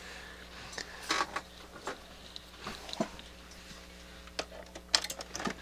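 Scattered light clicks and knocks of hands handling a mains cord and plug as it is plugged in, over a steady low electrical hum.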